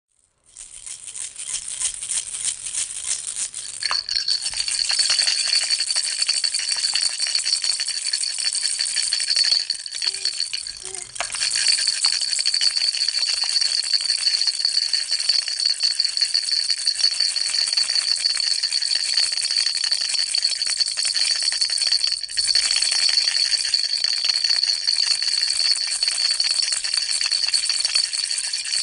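Toy baby rattle shaken continuously, a dense fast clatter of small beads, with a steady high ringing joining about four seconds in. There are short breaks near ten seconds and near twenty-two seconds.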